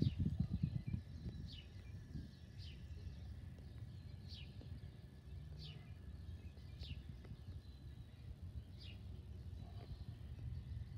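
Outdoor ambience: a bird repeats a short high chirp that slides downward, about every second or two, over a steady low rumble.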